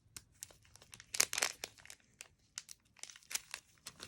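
Plastic packaging crinkling and crackling in gloved hands as they struggle to open it, in irregular bursts, with the busiest stretches about a second in and again around three seconds.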